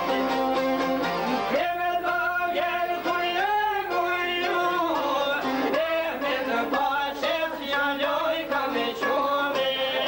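A man sings an Albanian folk song in long held, wavering notes, coming in about one and a half seconds in, over the plucked notes of a long-necked lute.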